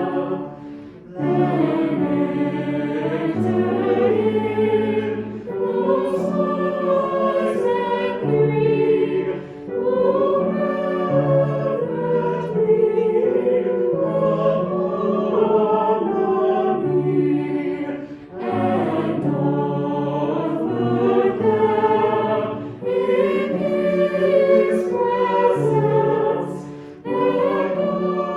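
A choir singing a hymn in long, sustained phrases, with brief breaks for breath between them.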